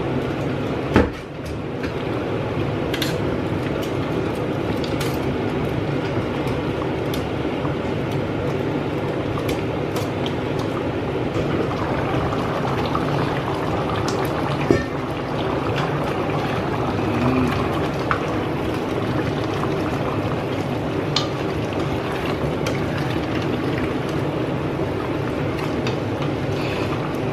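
Chicken stew in onion-soup broth simmering in a stainless steel pot, a steady bubbling hiss, with a few sharp knocks about a second in and midway through.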